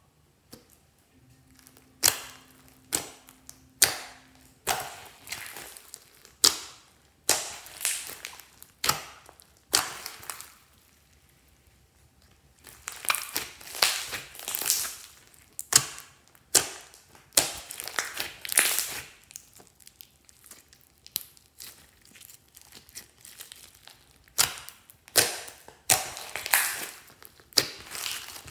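Hands squeezing, stretching and poking a large glossy clear-based slime mixed with glitter and foam beads, giving a run of sharp sticky crackles and pops. There is a quieter pause of about two seconds near the middle, then the crackling picks up again.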